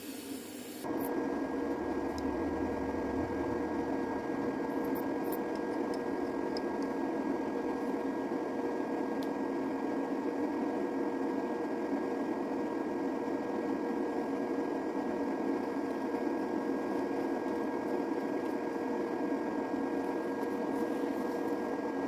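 Jasic TIG 200 inverter welder running: a steady whirring hum with a few constant tones, coming in about a second in.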